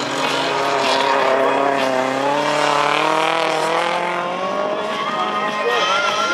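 Autocross race car engine revving hard, its pitch sagging and then climbing again about halfway through.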